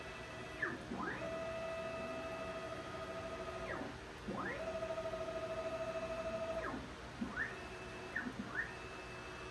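Stepper motors of a ProLIGHT 1000 CNC mill jogging its axes: a whine that rises in pitch as each move speeds up, holds steady, then falls as the move stops. It repeats for several moves, the longer ones lasting two to three seconds.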